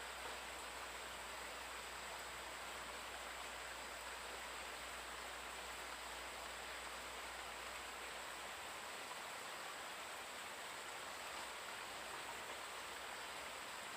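Steady rush of flowing river water, an even hiss with no separate events, with a faint steady high tone above it.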